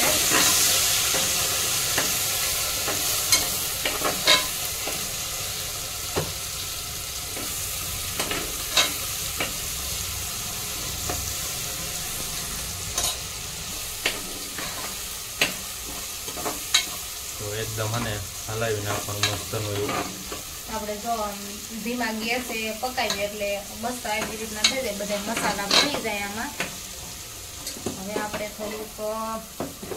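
Spiced tempering oil with hing, green chillies and red chilli powder sizzling in a pan as it is stirred, a spoon clicking against the pan now and then. The sizzle is loudest at first and slowly dies down.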